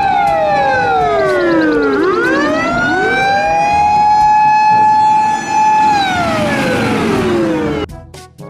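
Fire truck siren: a held tone that slides down, climbs back up and holds, then slides down again and cuts off near the end.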